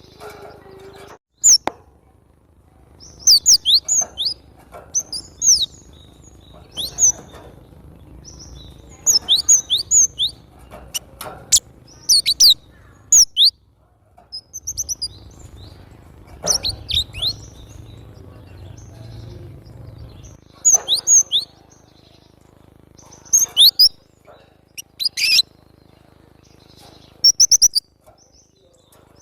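Cinereous tit (glatik batu) singing: short groups of quick, high chirps repeated every second or two, with brief pauses between phrases.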